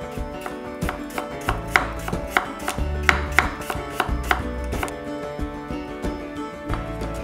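Chef's knife slicing a carrot on a wooden cutting board, about three chops a second that stop about five seconds in. Background music plays throughout.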